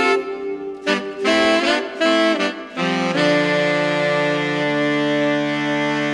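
Closing music: a short run of notes, then a long held chord that starts fading away near the end.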